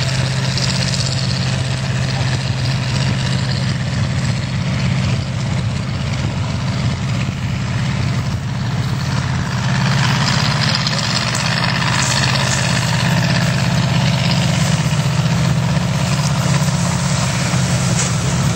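Small pickup truck's engine running hard as it drives through mud and water, a steady low drone that grows louder about halfway through as the truck comes closer.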